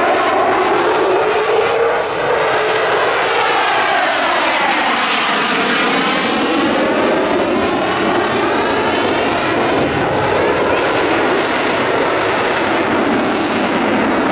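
Eurofighter Typhoon jet flying past, its twin turbofans loud and steady throughout. A phasing swoosh sweeps down in pitch to about five or six seconds in, then back up as the jet goes by.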